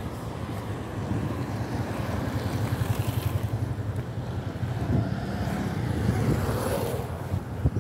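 A road vehicle on the move: steady, fluttering low engine and road rumble, with wind on the microphone.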